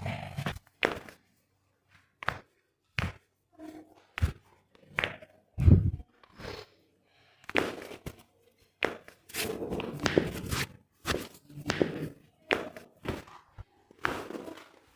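Scattered knocks, thuds and rustling from a chiropractic adjustment session, with one heavy thud about six seconds in.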